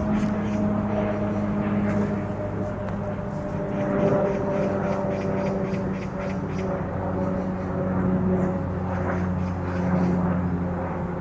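An engine running at a steady, even pitch, a loud drone with a low hum underneath, with faint ticks and chirps above it.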